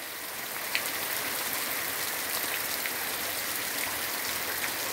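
Steady rain falling on grass and leaves, with scattered sharper taps of single drops.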